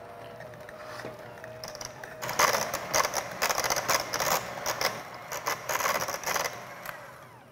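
Electric hand mixer running, its beaters mashing boiled potatoes. A steady motor whine comes first; from about two seconds in there is a louder, busy rattling churn as the beaters work through the potatoes, easing off near the end.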